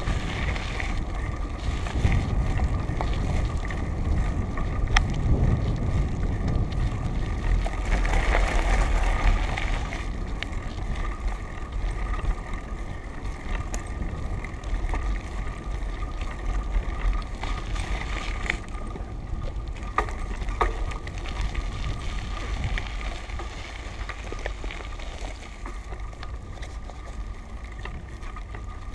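Wind buffeting the microphone of a camera riding along a gravel road, over the crunch of bicycle tyres on the loose surface, with scattered clicks and rattles from bumps. The wind rumble is gustier and louder in the first part, then eases.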